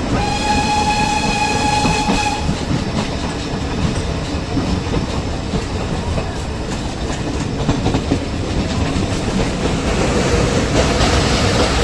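Nilgiri Mountain Railway toy train under way: its whistle sounds for about two and a half seconds at the start, then the steady rumble and clatter of the coaches' wheels on the track.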